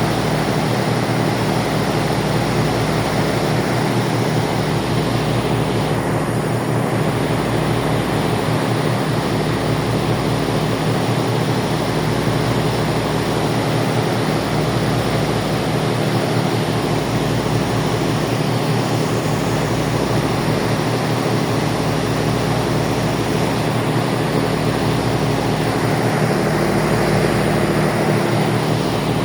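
Ferry's engines droning steadily, a hum of several low tones under a constant rushing noise.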